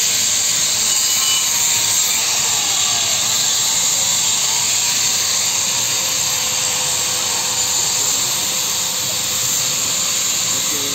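Power tools grinding and carving stone: a steady, high-pitched whine and hiss with no break.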